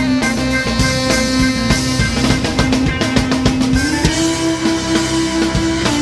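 Instrumental band music with a drum kit and guitar, a steady beat and a held low note that steps up in pitch about four seconds in.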